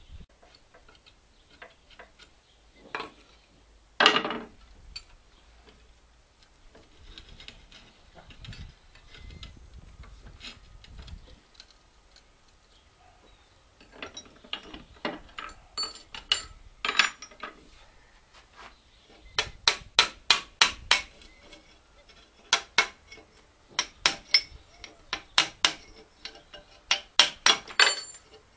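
Hammer striking a punch to knock clinker out of the blocked air holes of a metal pellet-boiler burning head. There is one heavy knock about four seconds in, then quick runs of light metal taps, several a second, through the second half.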